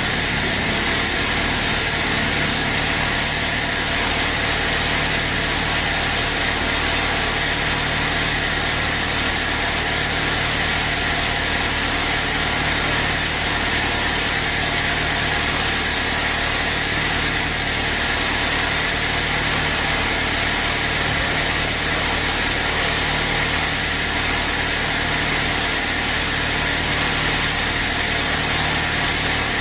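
Band sawmill running steadily, an even mechanical noise with a faint steady hum and no pauses or sudden changes.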